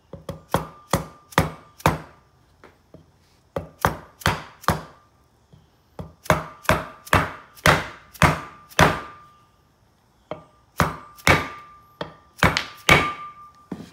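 A hammer striking the end of a 2x4 block to drive a new grease seal squarely into the hub of a brake rotor: about twenty sharp knocks in four bursts, each with a short metallic ring from the rotor.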